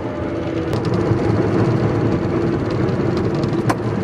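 Piaggio Ape TM three-wheeler's engine running steadily under way, with two short clicks, one about a second in and one near the end.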